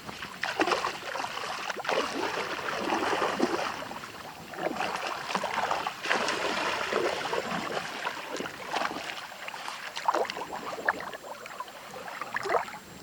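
Water sloshing and splashing in irregular swishes, as something is moved through shallow water.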